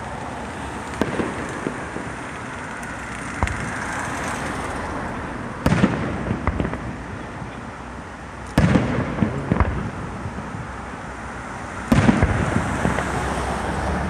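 Fireworks display: three loud aerial shell bursts about three seconds apart, each trailing off briefly, with smaller pops in between.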